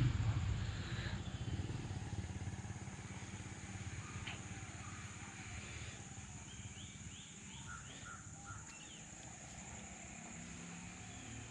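Quiet outdoor ambience: a low rumble that fades over the first few seconds under a steady high thin tone, with a few faint bird chirps about two-thirds of the way through.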